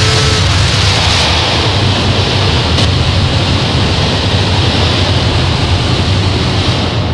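Harsh noise: a loud, dense wall of distorted electronic noise from analog synthesizer and fuzz and distortion pedals, with a heavy low rumble. A thin steady tone drops out about half a second in, and the highest hiss falls away about a second later.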